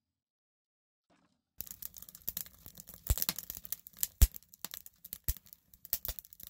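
Split logs burning in a wood stove, crackling and popping with irregular sharp snaps and a few louder cracks, starting about one and a half seconds in.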